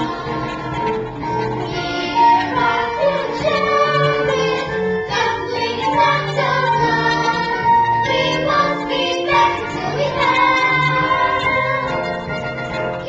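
A musical-theatre cast singing a song, with a lead singer and the ensemble joining in, over instrumental accompaniment.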